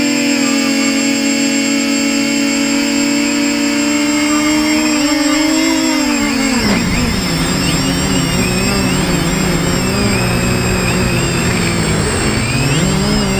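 Versacopter 280 quadcopter's electric motors and propellers whining at a steady pitch. About six seconds in, the pitch bends up, then drops, and a rushing noise joins it. The pitch then wavers with the throttle and rises again near the end.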